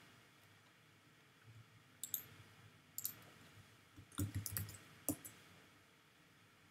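Faint computer mouse and keyboard clicks: a few single clicks spaced about a second apart, then a quick run of four or five key presses a little after four seconds in, as a short word is typed.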